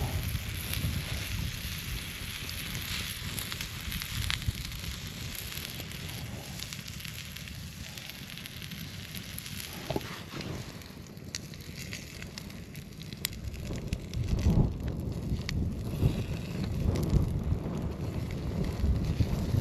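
Wood campfire crackling steadily, with a few sharp pops from the burning wood.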